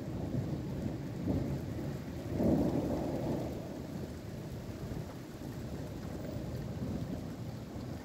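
Thunder rumbling over steady rain, swelling to its loudest about two and a half seconds in, dying away, then building again near the end.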